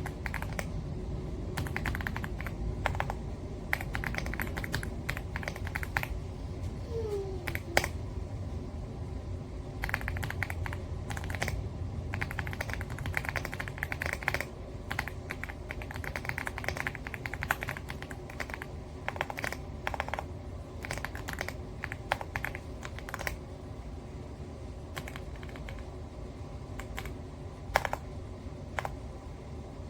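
Typing on an AULA F75 Pro mechanical keyboard with pre-lubed Reaper switches: runs of rapid keystrokes broken by short pauses, over a steady low hum.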